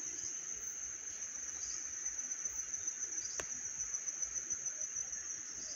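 Steady high-pitched insect drone, one unbroken tone, with a single faint click about three and a half seconds in.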